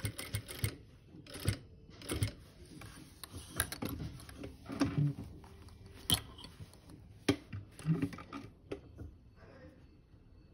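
Sewing machine stitching through quilt binding in short runs, the first run stopping about half a second in. Fabric is rubbed and shifted between runs, with a few sharp clicks.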